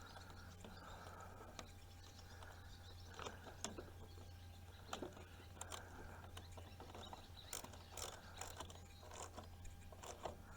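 Faint scattered clicks and knocks of hand tools and fasteners as a garden tractor's covers are refitted and bolted on, over a steady low hum.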